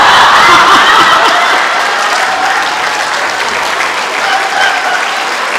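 Audience applauding and laughing, loudest at the start and then easing a little.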